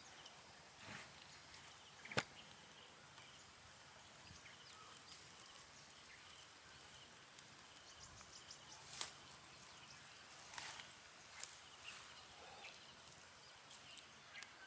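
Mostly near silence, with faint rustling and a few sharp clicks as baby monkeys move about in tall grass. The clearest clicks come about two seconds in, about nine seconds in, and a little later.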